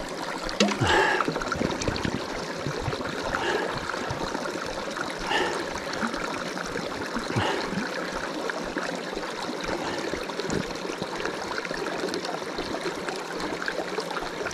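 Mountain stream running, a steady even rush of water.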